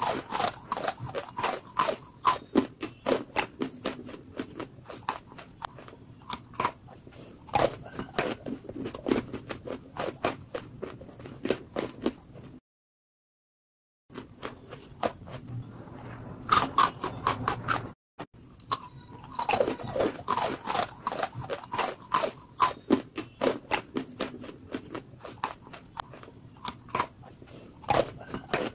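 Dry Nakumatt chalk chunks being bitten and chewed, a dense run of sharp crunches and crackles, cut by a moment of dead silence near the middle.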